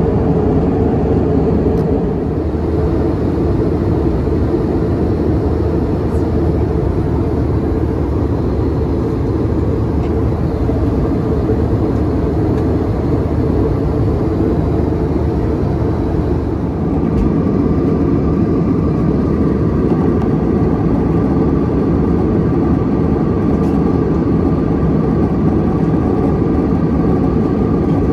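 Steady drone of a vehicle in motion, continuous throughout, its tone shifting slightly about seventeen seconds in.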